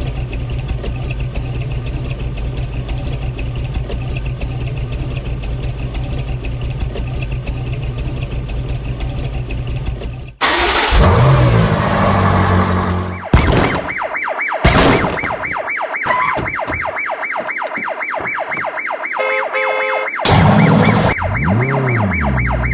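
Cartoon vehicle sound effects: a steady low engine drone for about ten seconds, then a sudden louder burst with sliding pitch, followed by a fast, evenly repeating warbling tone like a toy siren.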